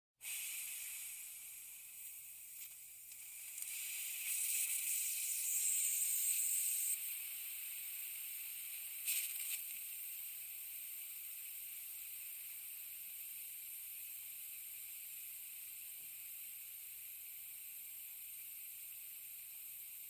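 Air hissing out of a slowly leaking air tank: a thin, high hiss that starts abruptly, swells louder for a few seconds, flares briefly about nine seconds in, then settles to a steady hiss.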